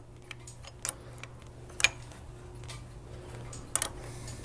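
A few light metallic clicks and clinks from a Harley-Davidson Evo lifter block and its alignment tool being handled by hand, the sharpest about two seconds in.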